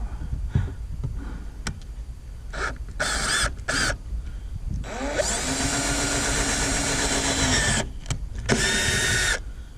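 Power drill run in a few short bursts, then one longer run of about three seconds that starts with the motor spinning up, then one more short burst near the end.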